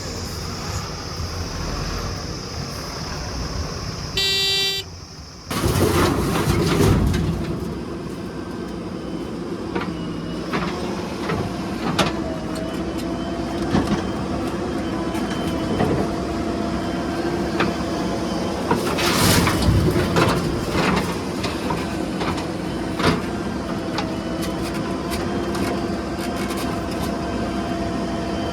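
Heavy diesel machinery running steadily, with a short horn toot about four seconds in. Two louder rushes of noise come later, one a couple of seconds after the toot and one near the middle.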